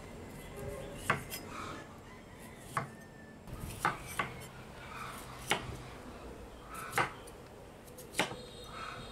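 Chef's knife slicing star fruit on a wooden cutting board, each stroke ending in a sharp tap of the blade on the board, seven times at an unhurried pace.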